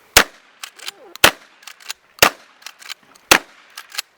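Gunfire: four loud shots about a second apart, with fainter cracks in between.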